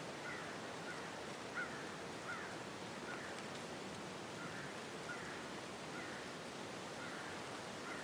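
Steady outdoor wind noise, with a bird giving short, high calls over and over, a little more than once a second.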